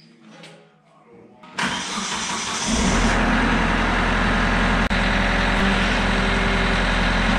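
Kubota LX3310 compact tractor's three-cylinder diesel engine being started: it cranks about a second and a half in, catches about a second later, and then runs steadily.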